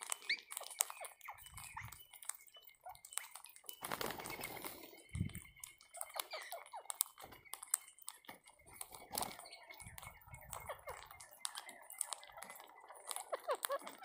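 Rose-ringed parakeets cracking and pecking at seed on the ground: a dense, irregular run of small sharp clicks, with a few faint short bird calls. A few duller rustling bursts come through, the loudest about four seconds in.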